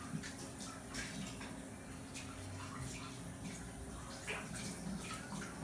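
Café dining-room background: scattered light clinks of dishes and utensils over a steady low hiss like running water, with faint distant voices.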